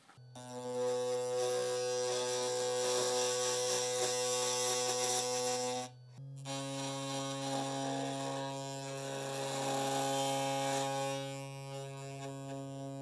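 Background music: a buzzy, sustained drone that breaks off about six seconds in and resumes on a slightly different note.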